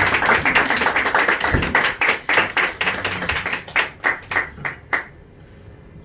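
Small audience applauding at the end of a song, the claps thinning out and stopping about five seconds in.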